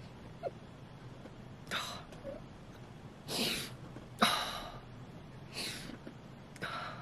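A woman sniffing hard through her nose at a bowl of raw stinky tofu: five short, sharp inhalations spread across a few seconds, the fourth-from-last, a little past the middle, the loudest.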